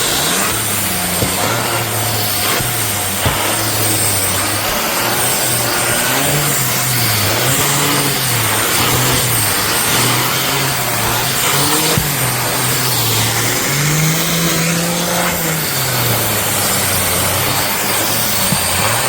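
Shark Stratos AZ3002 upright vacuum switching on with its pet brush attachment and running loudly, its motor pitch repeatedly rising and falling as the tool is worked.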